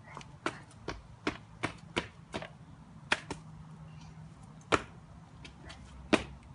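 A dozen or so sharp clicks and taps at irregular intervals, two louder knocks about three-quarters of the way in and near the end, over a faint steady low hum.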